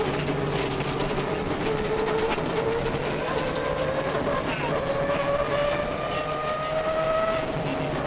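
Subaru Impreza 555 rally car's turbocharged flat-four engine heard from inside the cabin, pulling hard at speed. Its note climbs slowly from a few seconds in, then drops just before the end. Scattered sharp clicks sound over the engine and road noise.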